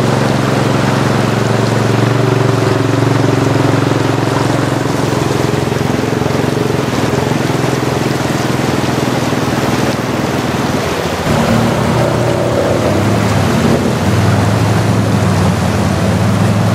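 ATV engines running steadily while the machines wade through a river, over the rush and splash of water churned by the wheels. The engine note changes about eleven seconds in.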